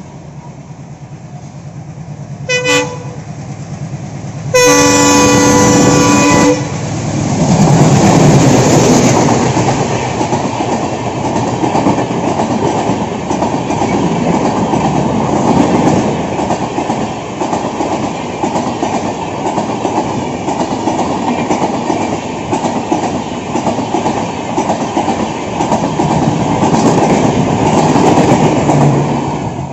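Indian Railways WDM-3D ALCO diesel locomotive approaching with its engine running, sounding a short horn toot about three seconds in and then a two-second horn blast. It then passes loudly, and its coaches roll by with a steady clickety-clack of wheels over the rail joints.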